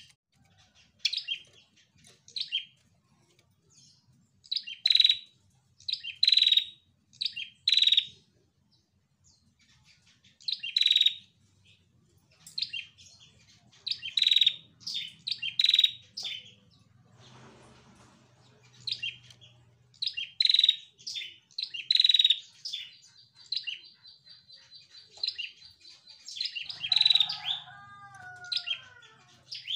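Female red-headed prenjak (tailorbird) calling: clusters of short, sharp, high chips with pauses between them, a held high note a little past the middle, and a run of lower falling notes near the end.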